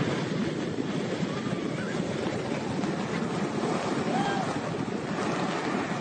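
Heavy storm surf crashing and churning against a pier, with strong wind buffeting the microphone; a steady rush of noise.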